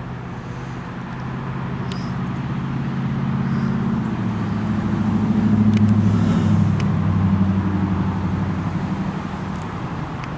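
A MARC commuter train approaching, its diesel locomotive engine running with a steady low drone that grows louder, loudest about six seconds in.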